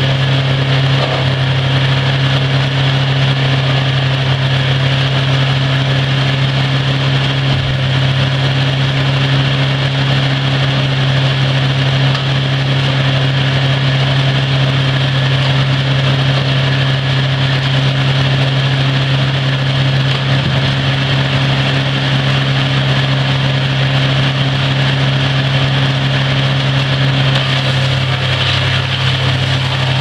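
1993 Brush Bandit wood chipper's Wisconsin four-cylinder gas engine running steadily at a constant speed, a loud even drone with a strong low tone.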